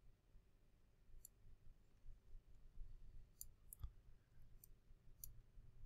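Faint computer mouse clicks, about half a dozen single clicks spread through, over near-silent room tone with a low steady hum.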